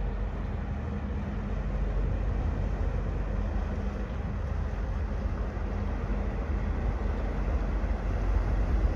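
High-speed catamaran ferry running past close by: a steady low engine rumble with the rush of water from its hulls and wake.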